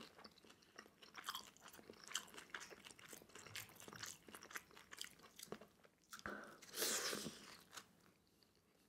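Close-miked chewing of pan-fried rice rolls (cheung fun): soft, wet mouth sounds and small clicks, with a louder noisy mouth sound about seven seconds in as another piece is bitten.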